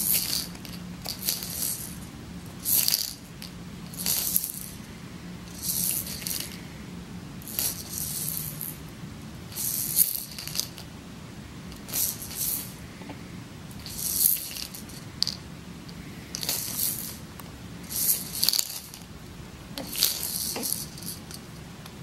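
Baby's soft activity ball with a clear bead-filled rattle chamber, shaken by hand in a dozen or so short rattling bursts, one every second or two.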